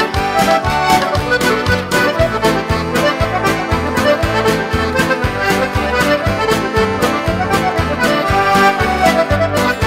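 Instrumental traditional tune led by accordion, with a steady beat underneath.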